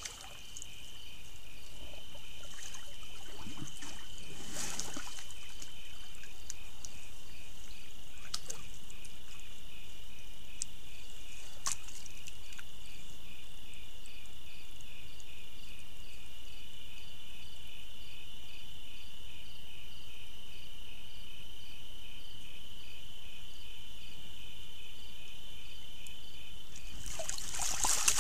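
Black bear wallowing in a shallow pool: water sloshing and splashing in short bouts, with a louder splash near the end as it heaves up. Underneath, a steady chorus of crickets chirring.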